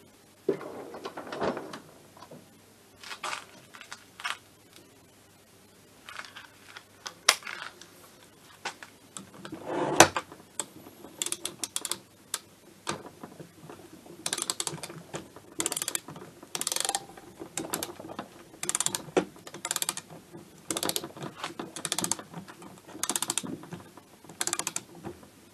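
Ratchet wrench clicking as a nut on a two-stroke moped engine is worked by hand. The clicks come in short runs, about one run a second through the second half, with a heavier metal knock about ten seconds in.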